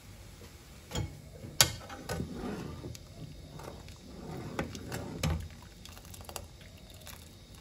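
Steel ladle clinking and scraping against a steel pot while thick rasam is stirred, with a sharp clink about one and a half seconds in and further clusters of knocks a few seconds later.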